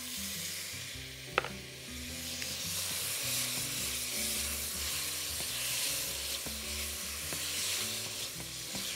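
Cherry tomatoes, black olives and garlic sizzling in olive oil in a pan while being stirred with a silicone spatula. A single sharp knock comes about a second and a half in.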